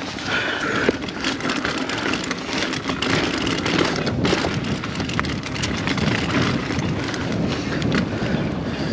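Rocky Mountain Instinct A10 full-suspension mountain bike being ridden over a rough, rooty dirt trail: continuous tyre and trail noise with frequent small clicks and knocks from the bike rattling over the bumps.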